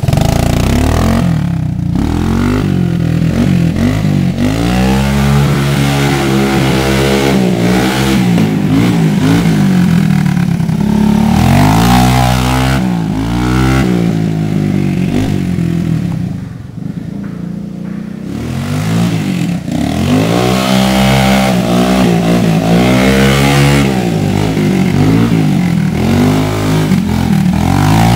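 Honda four-wheeler's engine revving up and easing off over and over as it is ridden through mud and grass, with a quieter stretch past the middle before it revs again.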